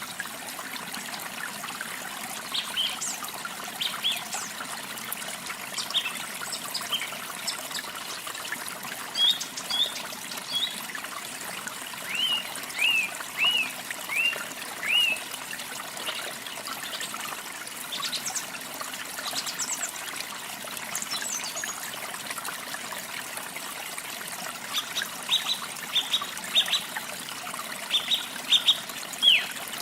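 Small songbirds chirping over the steady trickle of running water. Near the middle one bird gives a run of about five arched notes, and near the end there is a burst of quick falling chirps.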